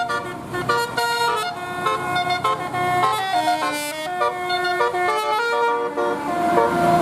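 Bus telolet musical air horn of the Basuri type playing a quick tune, its notes stepping up and down in pitch one after another.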